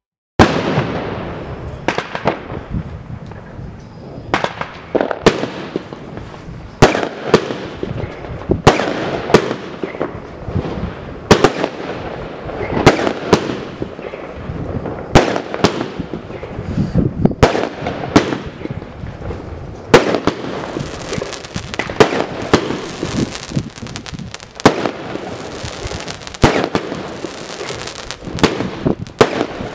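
Spring Fairyland consumer firework cake firing a long run of shots, about one to two a second: sharp launch reports and bursts with short trails after each. It starts about half a second in, and a steady hiss builds beneath the shots in the second half.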